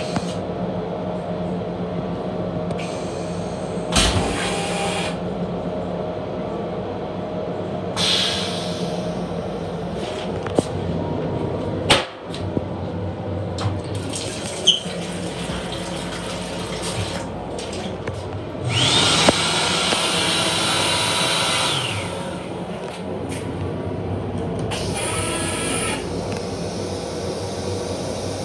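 Metro-North M7 railcar toilet flushing: a loud rush of water lasting about three seconds, starting about two-thirds of the way in. It sounds over the steady hum of the train car, with a few sharp clicks and knocks before it.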